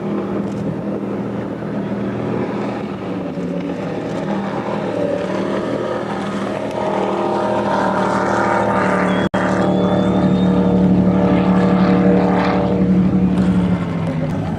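Motorboat engines running steadily, growing louder through the second half. The sound cuts out for an instant about nine seconds in.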